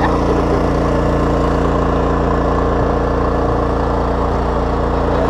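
Engine noise on an electrofishing boat: a steady, even drone that holds one pitch without revving.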